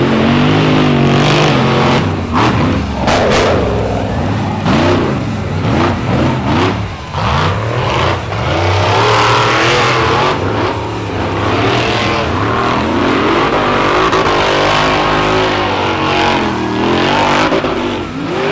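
Rock bouncer buggy engines revving hard, pitch rising and falling in repeated bursts, with more than one engine running at once.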